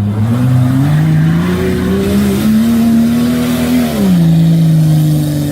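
Off-road 4x4's engine revving up under load, its pitch climbing steadily for about four seconds, then dropping sharply and running on at a steady lower pitch.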